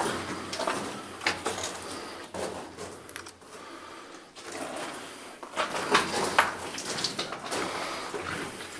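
Irregular scuffing footsteps and scrapes over rock and concrete, with scattered light knocks, echoing in a small tunnel.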